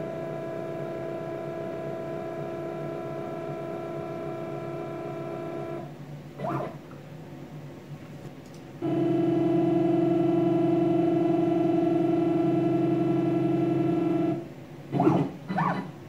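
CNC router's stepper-motor axis drives whining steadily during slow probing moves: one even tone for about six seconds, then a short quick whine, then a louder even tone for about five and a half seconds. Two brief quick whines come near the end.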